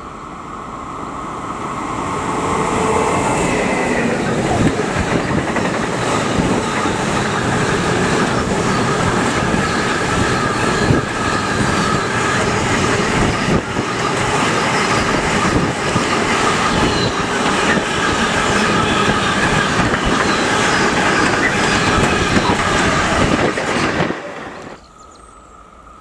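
A long train passing close by at speed, its wheels clacking over the rail joints with some wheel squeal. It builds up over the first few seconds, stays loud for about twenty seconds, and drops off sharply near the end.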